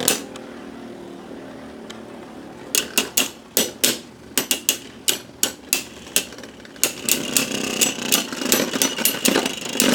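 Two Beyblade Burst spinning tops battling in a plastic stadium. There is a short sharp rip at the start, then a rapid, uneven run of sharp plastic clicks as the tops collide, from about three seconds in to near the end, with a faint high whine from about seven seconds.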